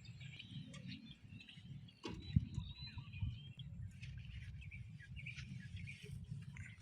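Small birds chirping over a low steady rumble, with one sharp knock about two seconds in.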